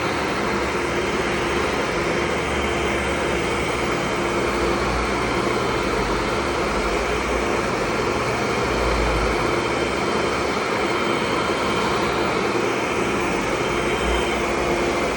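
Tennant commercial vacuum cleaner running steadily, its motor giving an even whir with a constant hum in it.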